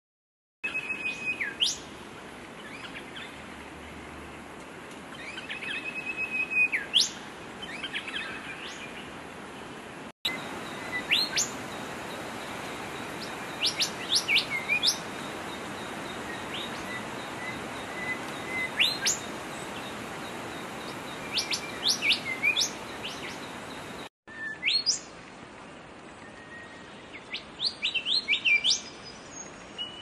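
Male golden whistler singing: repeated phrases of clear whistled notes, many ending in a sharp upward whip-crack, over a steady background hiss. The audio drops out abruptly twice, about ten and twenty-four seconds in, where separate recordings are spliced together.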